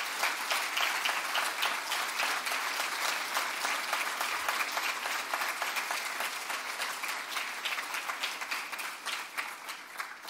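A large audience applauding, a steady round of many hands clapping that thins out and fades near the end.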